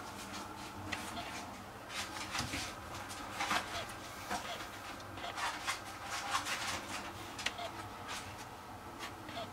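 Rustling and soft, irregular clicks as a small white puppy moves about on a fleece blanket.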